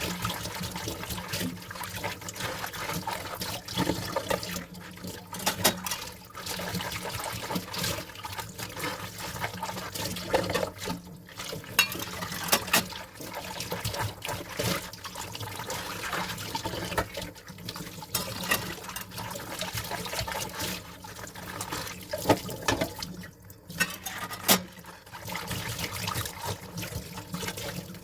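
Dishes being washed under a running tap: steady running water splashing in the sink, with frequent clinks and knocks of dishes against each other. The water briefly drops away twice.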